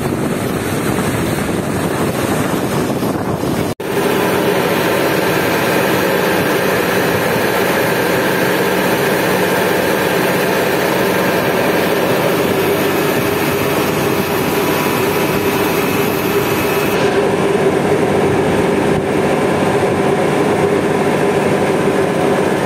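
Riverboat engine running steadily underway, with a constant pitched drone over the noise of the boat moving through the water. There is a brief dropout about four seconds in.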